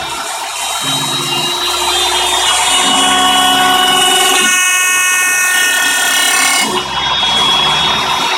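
CNC machine milling away a plastic layer: the spindle runs steadily while the axis motors whine in steady tones that jump to new pitches every second or two as the moves change speed and direction.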